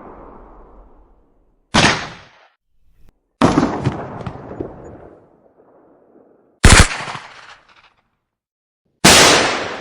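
Gunshot sound effects played in sequence: the echoing tail of one shot fades out, then four separate single shots follow about two to three seconds apart, each dying away in its own echo. The third is the loudest.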